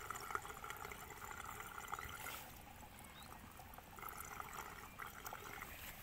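Faint, steady trickle of running water, a fine crackling splash that dips briefly in the middle and picks up again.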